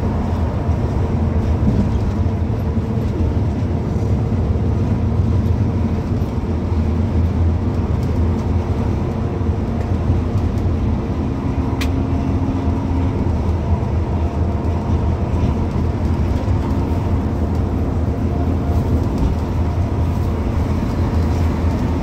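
Steady engine drone and road noise heard from inside a vehicle's cabin cruising at highway speed, with a single sharp click just before the middle.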